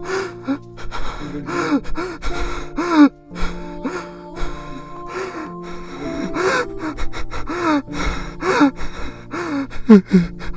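A man sobbing and gasping in short, broken cries over background music of long held tones; the sobs come more often and louder near the end.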